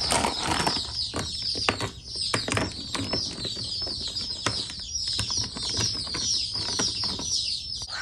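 A brood of baby chicks peeping constantly, many short high chirps overlapping, with hard clicks and knocks as rocks are set into the plastic tray of a chick waterer.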